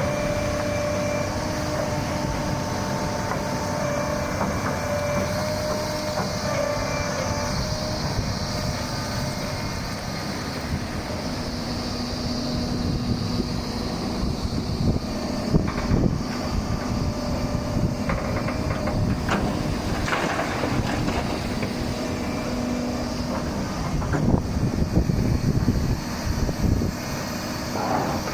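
Doosan 300LC-V crawler excavator working: its diesel engine and hydraulics run steadily with a faint whine. Several knocks and clanks come in the second half.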